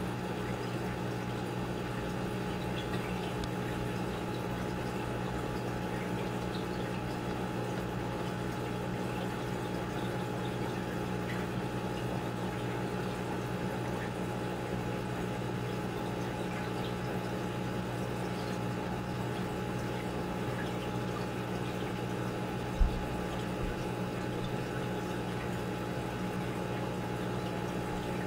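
Aquarium pump running steadily: a constant low hum with an even water noise over it. A single short thump about three-quarters of the way through.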